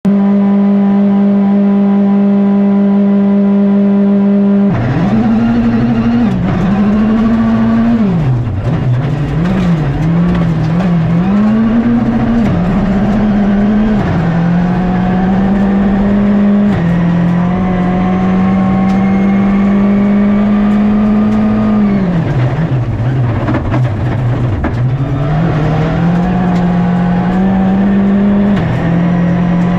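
Rally car engine held at steady high revs on the start line, then launching about five seconds in and accelerating hard down a gravel stage, the revs climbing and dropping sharply at each gear change and falling under braking for corners, with gravel noise under the car.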